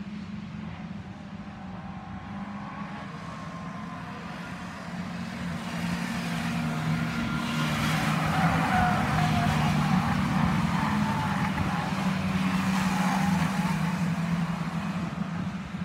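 Racing stock cars' engines running as the cars lap the track. The sound swells from about five seconds in as cars pass close by, and eases off slightly near the end.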